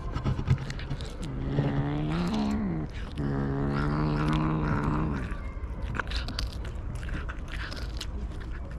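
A cat gives two long, low yowls over its food, the first bending in pitch and the second held steady, with crunching and clicking of eating before and after. It is the food-guarding growl-yowl that cats make while eating chicken.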